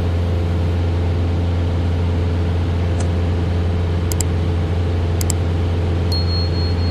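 Single-engine light aircraft's four-cylinder piston engine and propeller running with a steady drone, heard inside the cockpit of a Cessna 172RG Cutlass in flight. A few short clicks come near the middle, and a thin high tone starts near the end.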